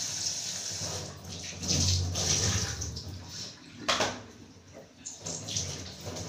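Water running from a kitchen tap into the sink while a bowl of cut potatoes is handled under it, with a sharp knock about four seconds in.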